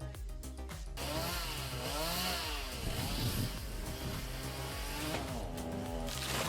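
Chainsaw running under load, its engine pitch rising and falling repeatedly as it cuts, starting about a second in.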